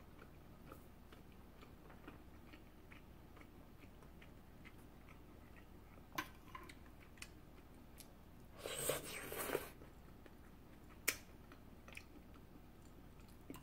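A person chewing a mouthful of kabocha squash pasta, quiet wet mouth clicks spread through, with a louder second-long stretch of chewing noise about eight and a half seconds in.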